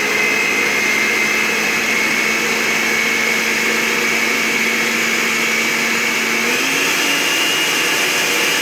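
Countertop blender motor running steadily at high speed, blending diced cucumber, ginger, lemon and basil with no added water. Its pitch steps up about six seconds in.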